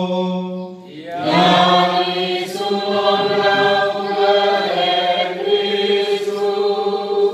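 Liturgical chant: long, held sung notes. It dips briefly about a second in, then comes back louder and holds.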